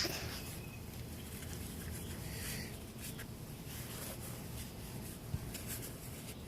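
Faint rustling and scraping with a few light clicks: hands handling small snap-fastener parts and tools.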